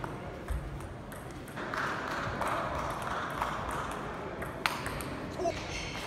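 Table tennis ball being struck back and forth in a rally: short, sharp clicks off the rackets and the table, a few of them louder near the start and near the end.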